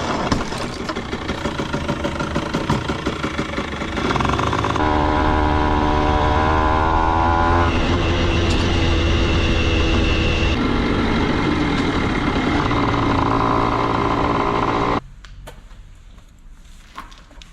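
Aprilia RS50 50cc two-stroke motorcycle engine running on the move, heard through several abrupt cuts where the engine note changes. About fifteen seconds in it cuts to a much quieter stretch with a few light clicks.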